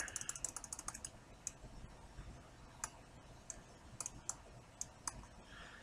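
Computer mouse clicking: a quick run of light clicks in the first second, then single clicks every half second or so.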